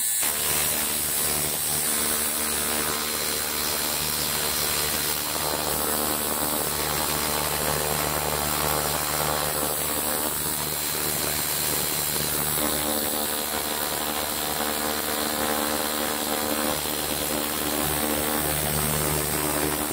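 Ultrasonic cleaning tank running with its liquid-circulation (microbubble) pump: a steady hum with a hiss over it, unchanging throughout.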